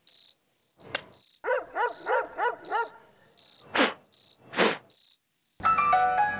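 Crickets chirping steadily as a night-time background, broken by a click about a second in, a quick run of about six wavering comic tones, and two short whooshes; music comes in near the end.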